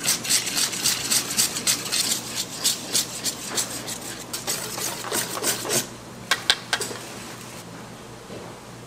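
A wire whisk beats flour-and-water batter in a stainless steel bowl, scraping and clinking against the metal at about three strokes a second. The whisking stops about six seconds in and is followed by a few sharp clicks.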